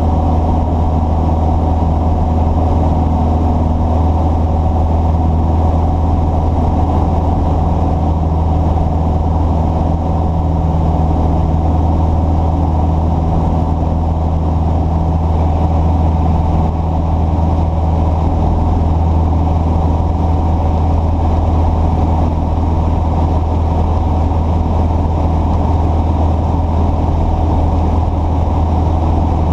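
An engine running steadily at an even speed: a loud, unchanging low hum with no revving.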